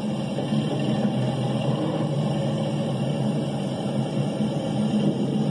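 OO gauge model Class 08 diesel shunter running slowly along the track, with a steady low drone.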